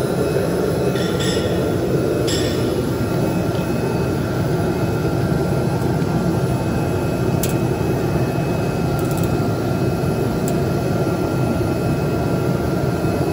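Automatic V-fold facial tissue folding machine running steadily, a dense even mechanical noise with a faint constant whine above it. A few sharp clicks stand out, the first about two seconds in.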